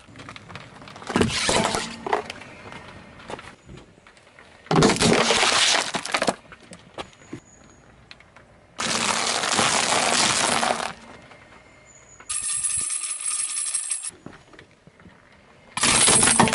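A car tyre rolls over and crushes small objects one after another, making five separate bursts of crunching and cracking, each a second or two long. Among them, brittle waffle ice-cream cones break up under the tyre. Near the end, a plastic toy tambourine is flattened and its metal jingles clink and ring.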